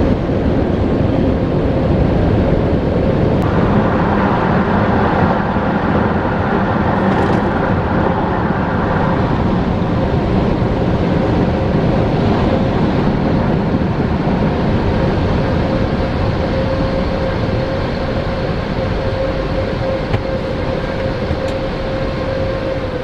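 Automatic car wash dryer blowers running, heard from inside the car: a loud, steady rush of air with a steady whine running through it, which turns brighter about three seconds in.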